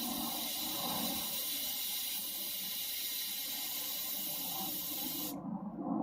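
Compressed air hissing steadily out of a car tire's valve stem as the valve core is held open to bleed the pressure down. The hiss cuts off sharply about five seconds in.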